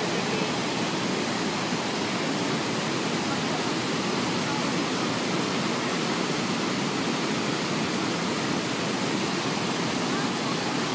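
Waterfall cascading down a rocky gorge: a steady, even rush of white water.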